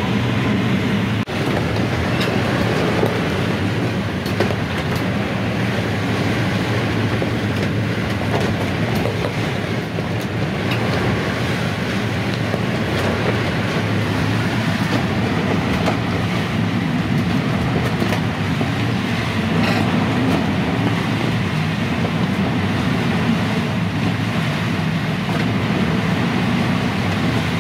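Steady rush of wind and water aboard a Leopard 45 sailing catamaran beating close-hauled in strong wind, with a heavy low rumble underneath.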